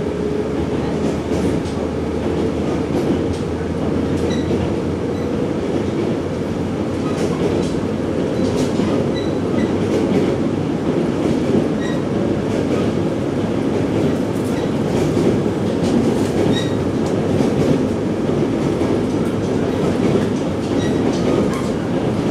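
Inside the cabin of a 485-series electric train running at speed: a steady rumble of wheels on rail, with scattered clicks as the wheels pass over rail joints, while it crosses a steel truss bridge.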